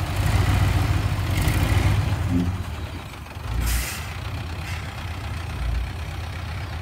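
Diesel dump truck engine running, pulling harder for about the first two seconds and then settling back, with a short sharp hiss of air-brake air about three and a half seconds in as the truck moves off with its bed tipped.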